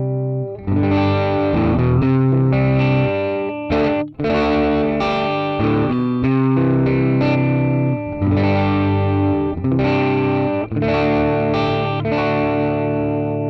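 Les Paul Standard electric guitar on its middle pickup position, played through the Joyo R-15 preamp's clean channel. It plays a sequence of ringing chords, changing about every second, with a brief break about four seconds in. The last chord is left to ring and fade near the end.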